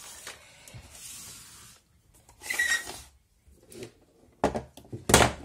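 Handling noises of items being picked up and moved about on a desk: a short rustle, then a few sharp knocks near the end, the loudest of them about five seconds in.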